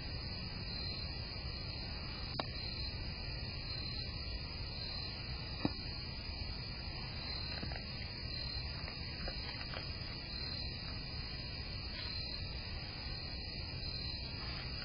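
Night insects chirping steadily, a high pulse repeating about once a second, over a low constant rumble. There is a short click about two and a half seconds in and a sharper one just before six seconds.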